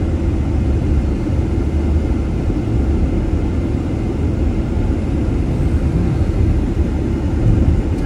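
Steady low rumble of tyre and engine noise heard from inside a moving vehicle on a highway.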